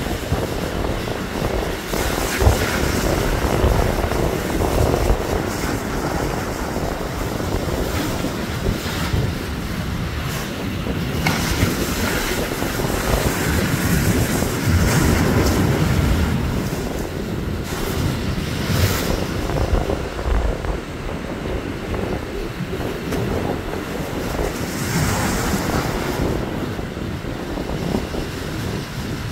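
Ocean surf breaking and washing over a rocky ledge, rising and falling in surges every few seconds as each wave hits, with wind rumbling on the microphone.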